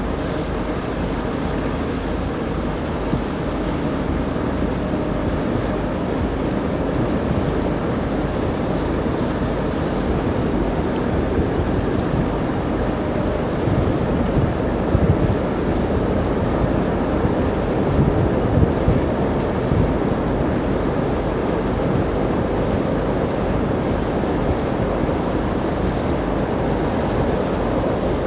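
Distant coal train hauled by an electric locomotive rolling across a steel truss bridge: a steady rumble of wagons on the rails, with wind buffeting the microphone and a few stronger gusts about halfway through.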